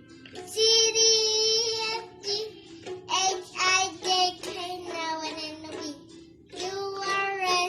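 A child singing a song, with a long held note about half a second in, shorter sung syllables after it and another held note near the end.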